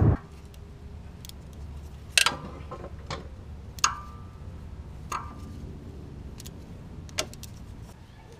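Metal hand tools clinking against metal while the timing belt tensioner is being taken off: a few separate sharp knocks, two of them with a short ring, and some fainter clicks in between.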